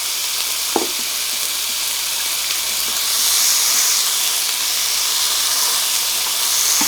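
Marinated beef bulgogi sizzling on a hot grill: a steady hiss that swells a little about three seconds in, with one light click near the start.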